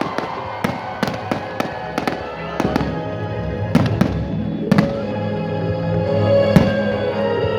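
Fireworks display: shells bursting in irregular sharp bangs and cracks, several close together at times, over music playing in the background.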